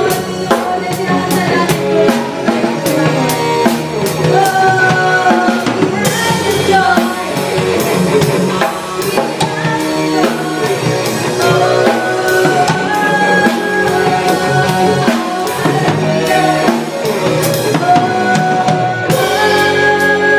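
Drum kit played with sticks, with kick, snare, toms and cymbals keeping a steady beat under a live band's held melody notes. Cymbal crashes come in about six seconds in and again near the end.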